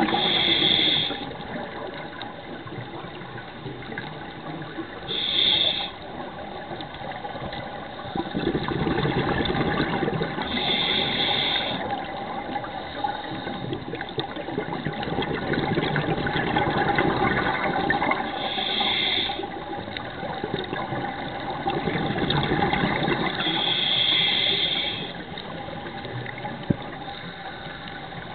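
Scuba regulator breathing underwater: five short hissing inhales several seconds apart, each followed by a longer burst of bubbling exhale.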